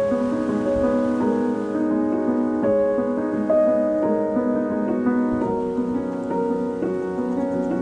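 Background piano music, with a slow melody of sustained notes.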